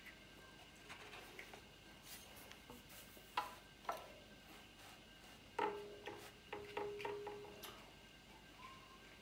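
Hands fitting a motorcycle radiator into its mounting brackets: faint rubbing and handling noise with a few sharp metal clicks and knocks, the loudest about three and a half and five and a half seconds in, one followed by a short ringing tone.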